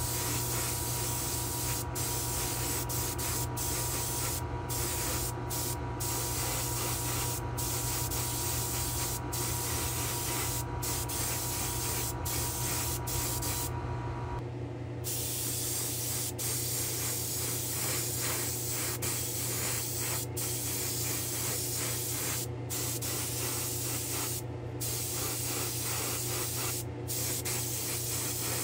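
Spray gun hissing as it lays 2K urethane clearcoat onto a painted diecast car body in repeated passes, the hiss broken by many short pauses between passes. A steady low hum runs underneath and partly drops away about halfway through.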